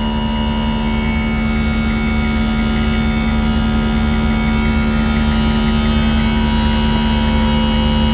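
Extreme Aire Magnum 24-volt onboard air compressor running steadily under load, filling its tank while airing up a flat tire, with a steady hum and the truck's engine running underneath.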